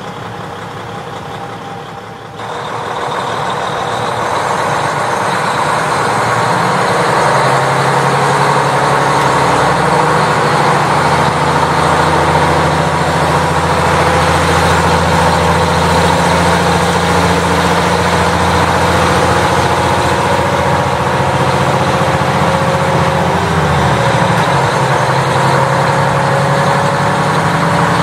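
KiHa 40 diesel railcar's engine heard from inside the car: after a quieter couple of seconds it powers up and runs loud and steady under load as the train moves. Its note dips briefly near the end.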